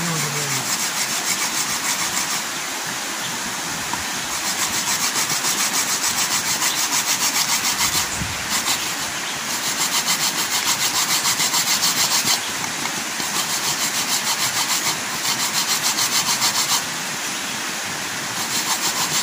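Coconut flesh rasped on a metal box grater, in fast scraping strokes of about five a second. The strokes come in runs of a few seconds with short pauses between them.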